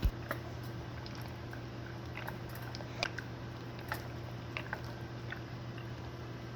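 Pot of shell pasta boiling in water: scattered soft pops and ticks, about half a dozen, over a steady low hum.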